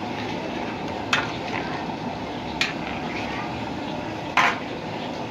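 A ladle knocking against a cooking pot three times while stirring thick beef in spice paste, the last knock the loudest, over a steady low hiss from the pot on the stove.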